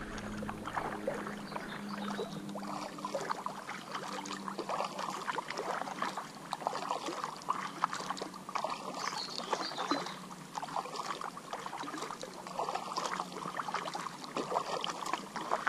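Double-bladed paddle pulling a packraft through duckweed-covered river water: splashing and dripping with many small crackles, in a steady rhythm of about one stroke every two seconds.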